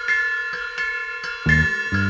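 Instrumental psychedelic Afro-jazz music: a high, chiming figure of struck notes repeated about three times a second, joined by a low bass line about a second and a half in.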